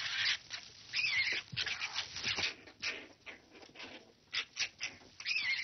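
Young red foxes fighting, giving high squealing screeches about a second in and again near the end, among short scuffling noises.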